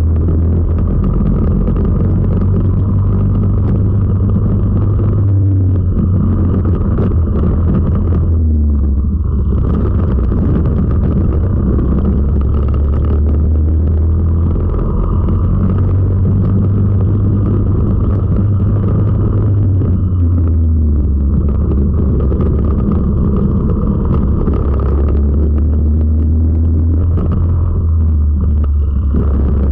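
Four-stroke racing kart engine heard from onboard, running hard at race pace. Its note drops and climbs again several times as the kart slows for corners and accelerates out.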